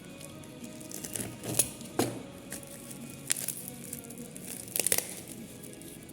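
Packaging being handled and crinkled while a camera is unboxed: a few sharp crackles and rustles, clustered about a second in, once around the middle and again near the five-second mark, over quiet background music.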